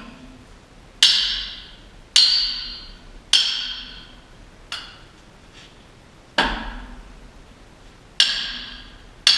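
Hammer blows on steel, each a sharp strike that rings and fades. About seven strikes at uneven intervals, roughly one a second, with one clearly lighter than the rest.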